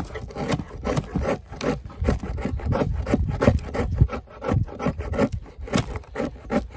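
Knife blade scraping and shaving a stick of fatwood (resin-rich pine), a quick run of repeated strokes peeling off curls of shavings.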